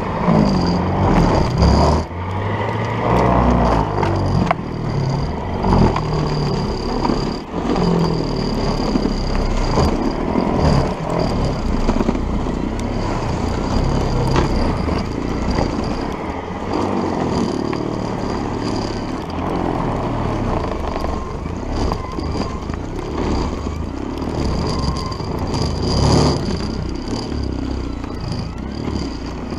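Electric-motor conversion of an old MTD snowblower running under heavy load, its auger churning through deep snow and throwing it, a steady mechanical rush with a thin high whine that comes and goes.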